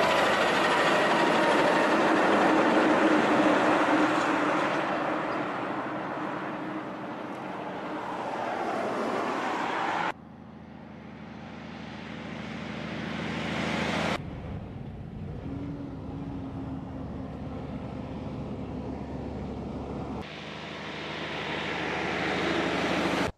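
Diesel road trains driving past on the highway, engine and tyre noise growing and fading as each truck passes. The sound cuts off abruptly three times where one piece of footage gives way to the next.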